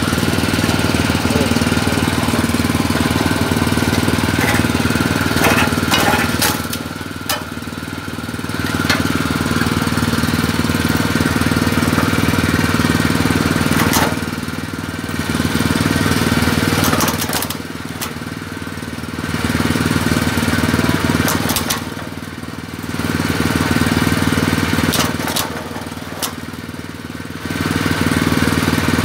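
Coconut shell-paring machine running, its toothed cutter drum grinding against a coconut held to it by hand over the steady hum of the machine's motor. The loud grinding drops back for a second or two about five times, leaving the motor hum.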